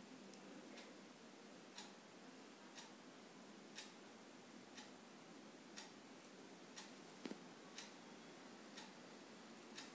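Faint ticking of a clock, one sharp tick about every second, over low room hiss.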